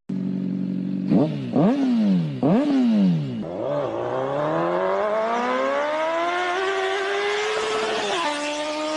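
An engine idling, blipped twice quickly, then revving up steadily over several seconds before settling at a higher steady pitch near the end.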